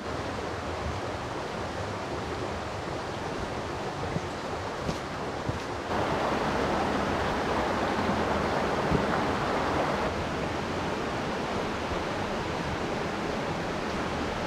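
Steady rush of creek water pouring through a rocky gorge, growing louder about six seconds in.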